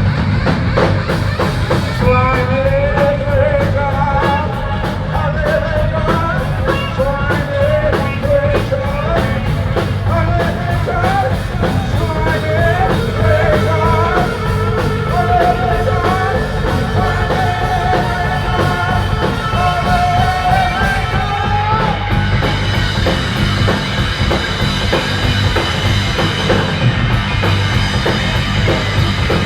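A heavy rock band playing live, loud, with a dense bass guitar sound and a driving drum kit. A vocal line wavers over it from about two seconds in until about twenty-two seconds, then the playing goes on without it. The sound is captured on a phone.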